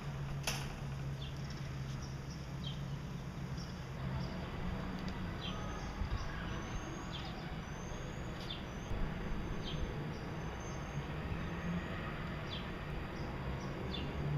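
Gouldian finches giving short, high rising chirps every second or so, with a sharp click about half a second in, over a low hum.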